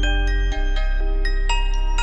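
Instrumental hip-hop beat: a looping bell-like mallet melody of quick repeated notes over a steady heavy bass, the bass dropping out for a moment about half a second in.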